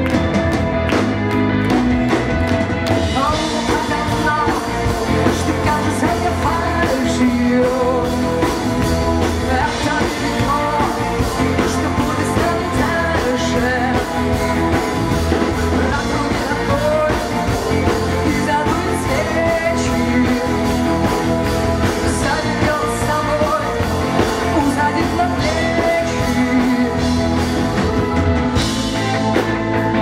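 A live rock band plays electric guitar, bass guitar, drum kit and keyboards, and a female lead vocalist sings into a microphone from about three seconds in.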